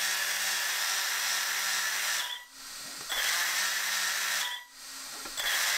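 The brushless motors of a 3D-printed RC car power unit running through their 3D-printed 5:1 reduction gears, a steady hissing whir with a low hum under it. It cuts back twice, each time for under a second, and spins back up.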